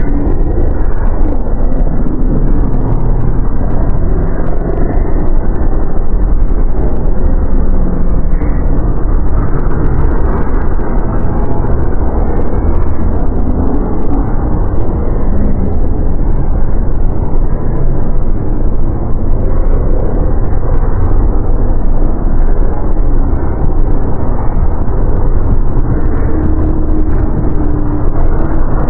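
Dark ambient horror soundscape: a loud, steady low rumble with faint tones drifting through it and nothing sharper on top.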